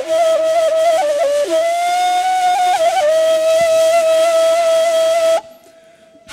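A solo flute playing a folk melody: held notes decorated with quick ornamental flicks. It breaks off about five and a half seconds in.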